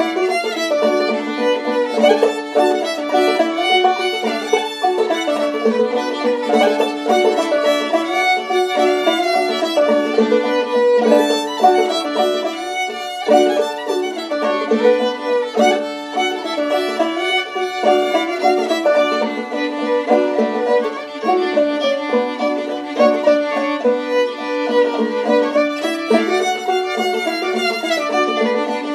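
Old-time fiddle and banjo duet: a handmade maple-and-red-spruce fiddle bows the melody over a steady held low note while a handmade cherry-and-rosewood banjo plays along.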